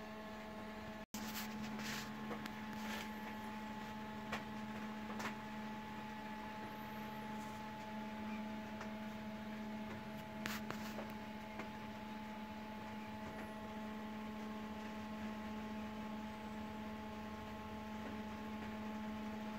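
Steady electrical hum, with a few faint clicks scattered through it; the sound cuts out for an instant about a second in.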